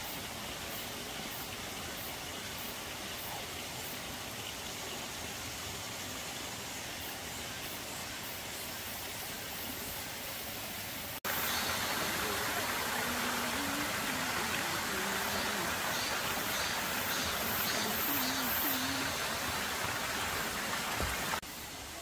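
Stream water running steadily, an even rushing hiss. About halfway through it cuts abruptly to a louder, brighter stretch of the same water sound, which drops back just before the end.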